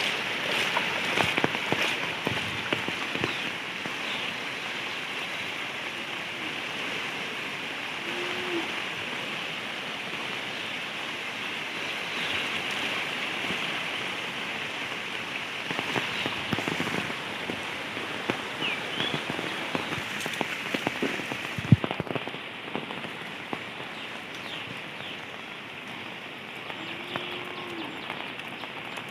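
Steady rain falling, with individual drops ticking close by. A short low call sounds twice, and there is one sharp knock about two-thirds of the way through.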